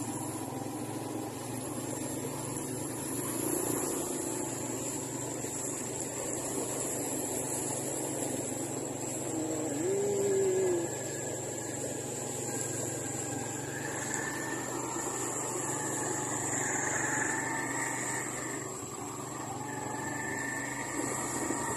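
Motorcycle tricycle engine running steadily while riding along a flooded street. A brief higher-pitched sound rises out of it about ten seconds in.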